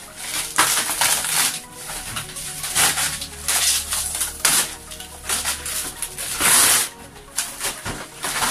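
Cardboard packaging being torn and pulled apart by hand: a string of irregular rips and crumples, the longest and loudest about two-thirds of the way through.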